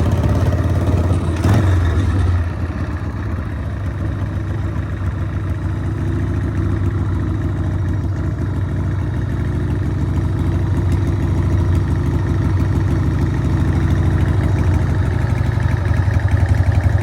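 Harley-Davidson Sportster V-twin engine running steadily at a constant pitch, with a short louder moment about a second and a half in and a slight swell near the end.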